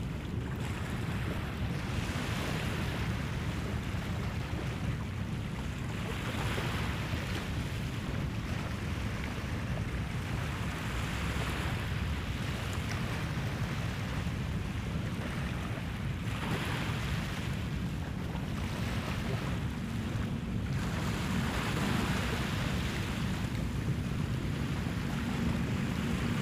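Small waves washing up on a sandy beach, a hissing swell every four to five seconds, over a steady low rumble of wind on the microphone.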